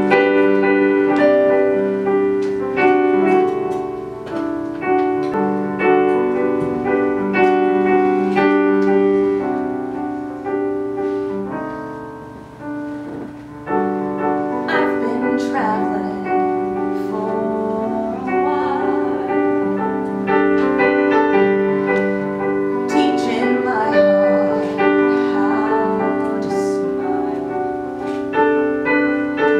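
Piano playing the introduction to a musical-theatre song in a gentle, repeating chordal pattern. A woman's singing voice comes in over it later on.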